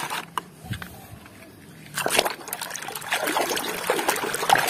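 A few light plastic clicks as mud-covered toys are picked from a plastic basket, then from about two seconds in, a hand sloshing and swishing a toy around in a tub of muddy water.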